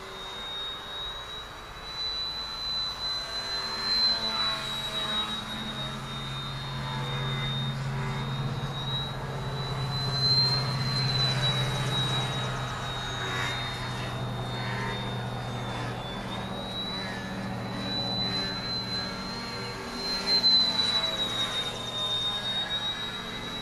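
Radio-controlled model airplane's motor and propeller whining in flight, the pitch drifting up and down with the throttle and growing louder at several points as the plane passes.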